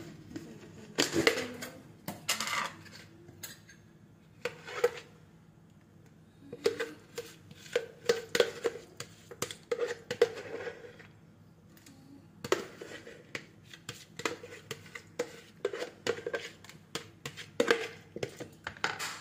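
A kitchen utensil knocking and scraping in a glazed bowl as its contents are mixed: clusters of irregular clinks and taps with a few short pauses.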